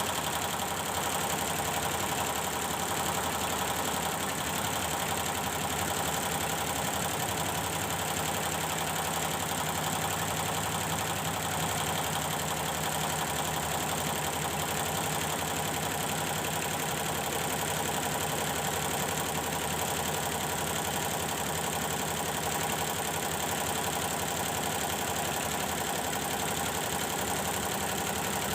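Computerised embroidery machine running steadily, stitching on a test run after the power supply in its drive unit was repaired.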